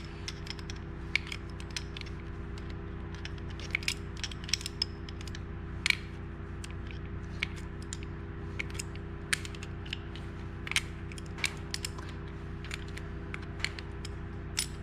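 Scattered, irregular light metal clicks and taps of hand tools as a bevelled bearing separator is worked under a part of a chainsaw and its bolts are fitted, over a steady low hum.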